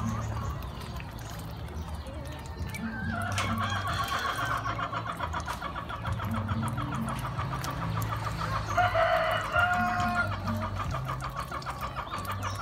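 A flock of young ducks calling in a fast, pulsing chatter, louder about nine seconds in, over faint background music with a low repeating line.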